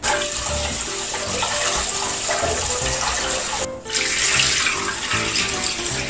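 Kitchen tap water running into a pot of rice as it is washed, a steady rush that stops briefly a little before the fourth second and then resumes.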